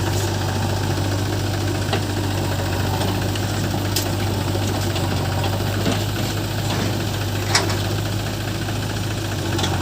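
Diesel engine running steadily at low revs, with a few short sharp knocks, the loudest about three quarters of the way through.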